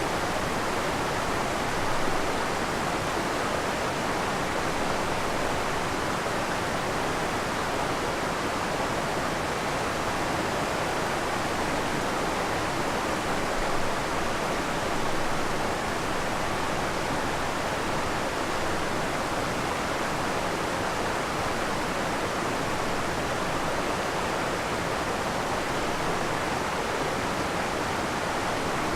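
Waterfall and creek water rushing steadily, an even splashing roar.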